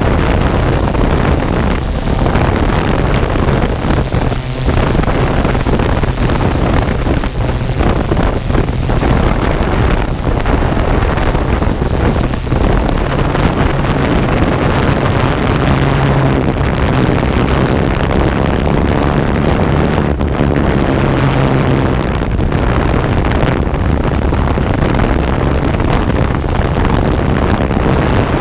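Multirotor drone's propellers and motors humming steadily at a constant pitch, picked up close on the drone's own microphone with wind buffeting it.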